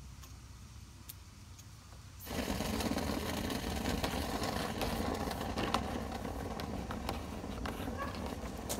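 A motor on dryer vent cleaning equipment starts about two seconds in and runs steadily, with scattered rattling clicks over it.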